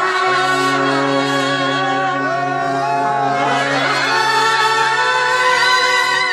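Kerala brass band (bandset) playing: clarinets and trumpets carry a melody with some sliding notes over a steady held low note.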